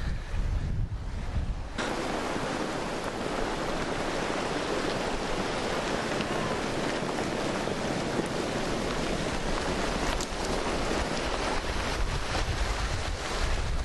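Floodwater rushing down a desert wash in a steady roar, with wind buffeting the microphone. For the first two seconds only the low wind rumble is heard, then the rush of water comes in suddenly.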